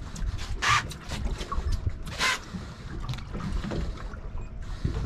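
Wind and water sounds around an anchored fishing boat, a steady low rumble. Two short hissing bursts come about a second and two seconds in.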